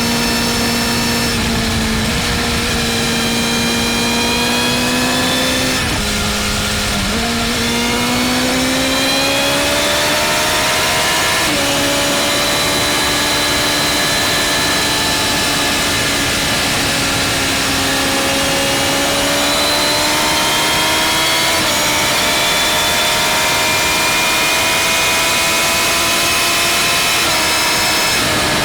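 BMW M1000R's inline-four engine running hard at Autobahn speed. Its note climbs slowly and steps up and down a few times, about a quarter of the way in, near the middle and near the end, as throttle and gear change. A steady rush of wind and road noise lies under it.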